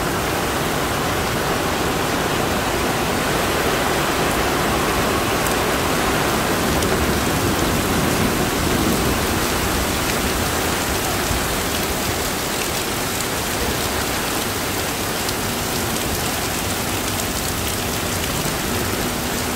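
Extremely heavy monsoon rain pouring down steadily.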